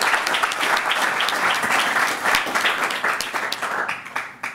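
Audience applauding, a dense run of handclaps that fades away near the end.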